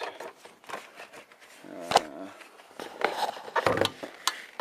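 Scattered knocks and clicks of things being handled and moved, with a brief murmur of voice about two seconds in.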